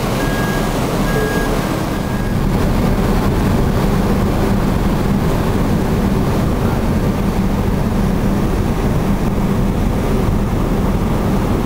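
Steady rumble and hum of the MV Pont L'Abbé car ferry's engines and machinery under way, heard from the open deck with a constant hiss. A short electronic beep repeats about once a second and stops about two seconds in.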